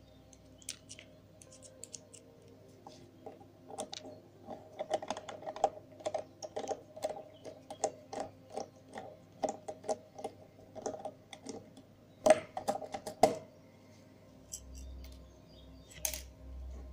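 Small screwdriver working on the plastic and metal parts of a camcorder lens assembly as it is taken apart: a run of light, irregular clicks and ticks, with two louder clicks about three-quarters of the way through.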